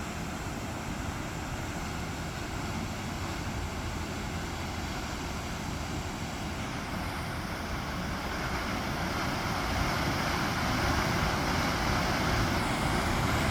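Waterfall: a steady rush of falling water, growing a little louder in the second half.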